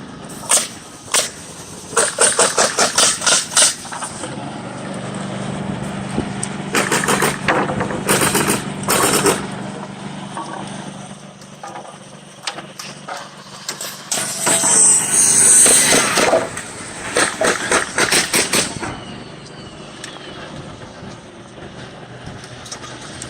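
House-framing construction noise: rapid runs of sharp knocks from hammering or nailing come in bursts, over a steady engine hum, with a loud hiss around the middle.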